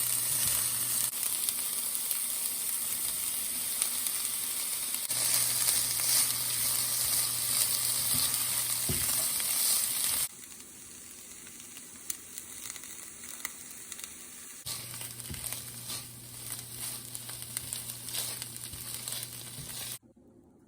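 Food sizzling as it fries in hot oil in a pan, a steady loud hiss. About ten seconds in it turns quieter, with scattered small pops, then stops abruptly near the end.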